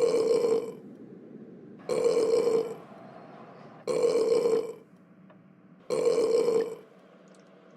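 Loud burp sound effect repeated four times, about one every two seconds, each burp identical and lasting under a second.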